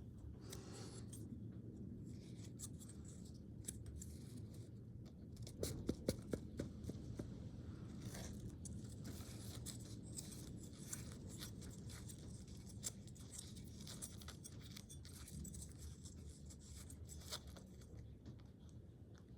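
Faint clicks, taps and scraping of hands handling a typewriter ribbon spool and its ribbon, with a cluster of sharper clicks about six seconds in, over a low steady hum.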